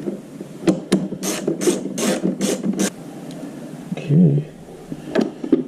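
Ratchet wrench clicking in quick repeated strokes, about three a second, as it runs a 10 mm bolt in, stopping about three seconds in, with one more short stroke near the end.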